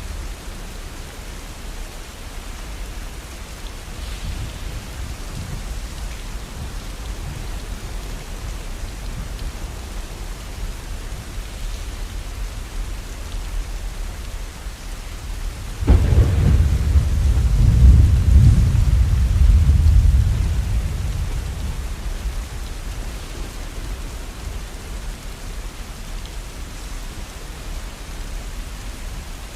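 Steady falling rain, with a roll of thunder about halfway through that begins suddenly, rumbles deep for several seconds and then fades away.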